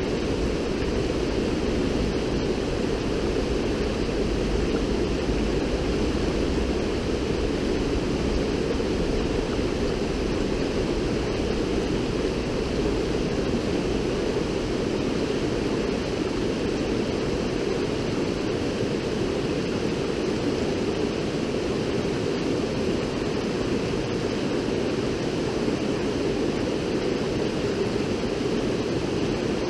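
River water rushing steadily, an even, continuous noise. A low rumble underneath eases off about halfway through.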